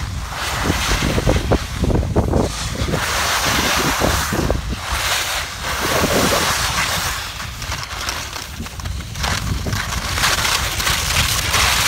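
Wind buffeting the microphone during a run down a ski slope, with a rushing hiss of sliding over snow that swells and fades every second or two.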